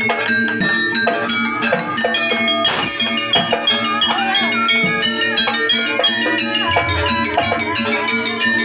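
Javanese jaranan ensemble music: struck metallic notes and percussion, with a wavering melody line over them in the middle.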